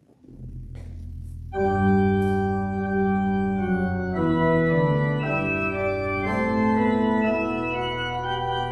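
Church organ playing: a low bass note sounds first, then full sustained chords come in about a second and a half in and change slowly.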